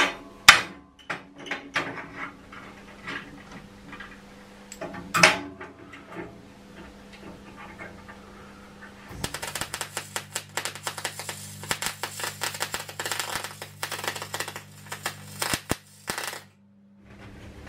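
A MIG welder's arc crackling and spitting for about seven seconds over a steady hum as it fills a drilled hole in a steel plate backed with a copper block, then cutting off. Before it come scattered metal clunks and clicks as the copper backing block is held and clamped against the plate.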